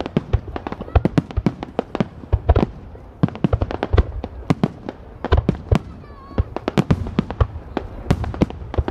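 Aerial firework shells bursting in a dense barrage, a rapid run of sharp bangs several a second over a continuous low rumble.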